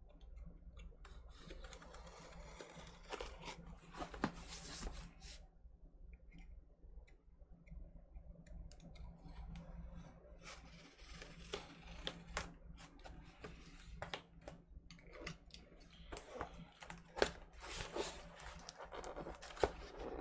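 Box cutter scraping and slicing at packing tape on a cardboard record mailer, with scratches and sharp clicks in irregular bursts. The tape is hard to get through.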